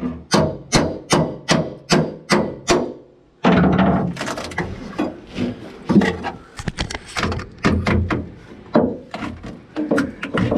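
Hand hammer blows, about two and a half a second, on a steel pry bar driven into rotten wood against a rusted steel hull frame, each blow ringing briefly. About three seconds in it cuts abruptly to irregular scraping and crunching as rotten wood and rust scale are pried and chiselled out.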